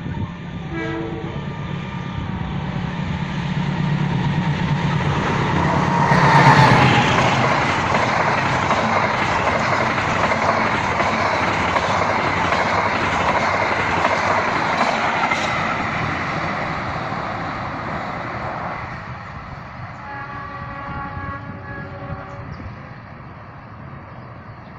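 Passenger train passing: a low engine rumble builds until the head of the train goes by about six seconds in. Then comes a long steady rush of carriages with wheel clatter on the rail joints, which fades after about nineteen seconds.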